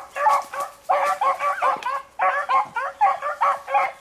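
Pack of beagles giving tongue on a rabbit track, several dogs at once in a rapid run of short yelping barks, about four a second: the hounds are running the rabbit's scent line.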